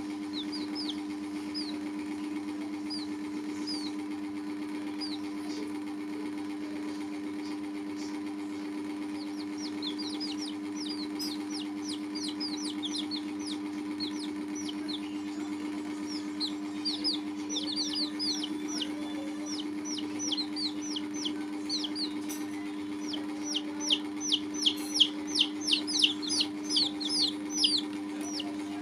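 Baby chicks peeping: short, high, downward-sliding peeps, scattered at first, then coming thick and fast and loudest near the end. A steady low hum runs underneath.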